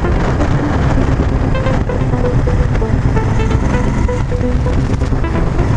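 Cruiser motorcycle engine and wind noise while riding, mixed with background music that carries a melody in short stepped notes.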